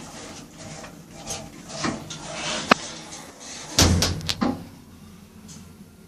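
Lift doors sliding shut: scattered clicks and knocks, then a low thud about four seconds in as the doors close. The background drops quieter after it.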